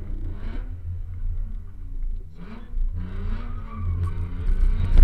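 BMW E46 rally car's engine heard from inside the cabin, revving up and dropping back several times as the car is driven through the stage, over a steady low drone.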